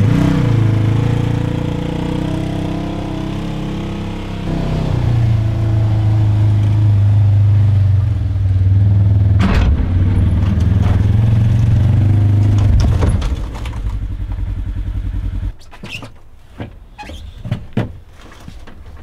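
Side-by-side UTV engine running and revving as the machine drives up onto an aluminum trailer. The engine cuts off suddenly a few seconds before the end, followed by a few sharp knocks.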